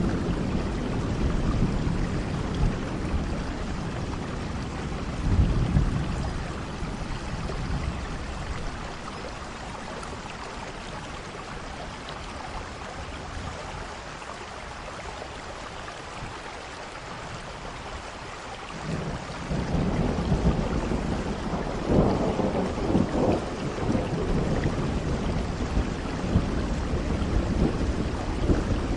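Steady rain falling, with thunder rumbling near the start, easing off for a stretch, then rolling back in about two-thirds through with a sharper clap.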